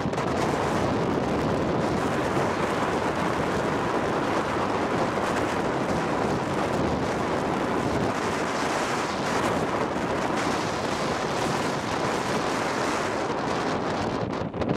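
Wind rushing over the microphone at speed, with longboard wheels rolling on asphalt underneath: a steady, even rush.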